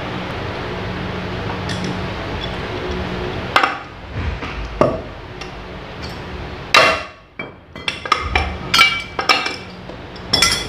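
Metal parts of a gondola hoist being handled during disassembly: a series of sharp metallic clinks and knocks, some ringing briefly, over a steady background hum that fades out after about three seconds.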